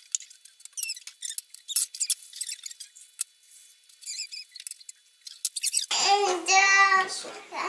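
Fast-forwarded kitchen clatter of a toddler handling a metal tin lid beside a bowl of flour, made thin and squeaky by the speed-up, with light clicks. About six seconds in, normal-speed sound returns with a young child's high-pitched vocalizing of about a second, then light clatter.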